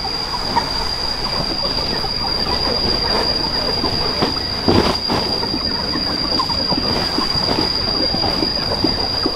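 Cicadas droning steadily in one high-pitched tone, with scattered light crackles and a brief louder rustle about halfway through.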